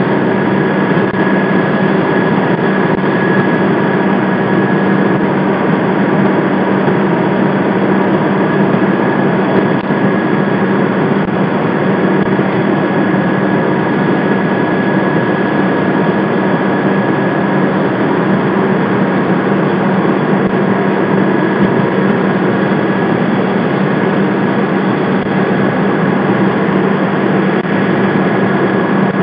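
Fire apparatus's heavy diesel engine and pump running steadily at raised revs, with a constant hum under a loud, even rush.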